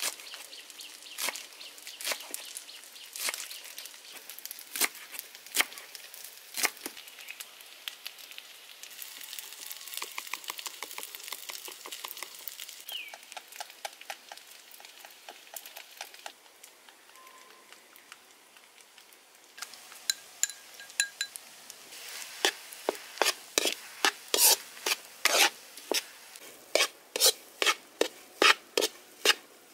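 Knife chopping green onions on a wooden cutting board with sparse sharp knocks, then chopsticks rapidly clicking against a bowl as eggs are beaten. From about two-thirds in, a metal spatula strikes and scrapes a wok about twice a second as egg fried rice is stir-fried over a light sizzle.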